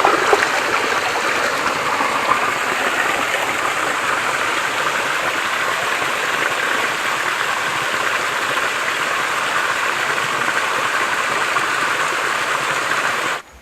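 Waterfall water falling and rushing steadily, close by, with a light flow. The sound cuts off suddenly near the end.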